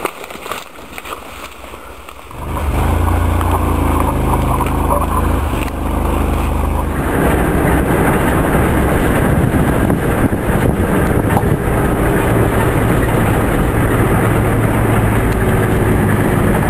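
Motor vehicle running: a steady engine hum, then from about seven seconds in a loud, even rush of road and wind noise while driving.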